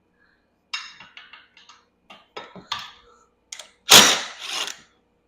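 Knocks and rattles of a golf cart's rear seat being handled and pulled loose, with a louder scraping clatter about four seconds in.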